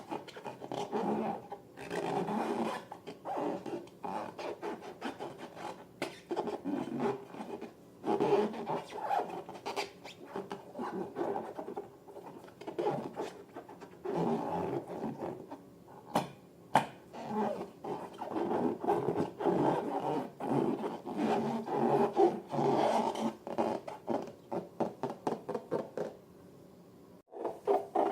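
Slime being squeezed and worked by hand: a dense, irregular run of sticky squelches and small crackling pops, easing off briefly near the end.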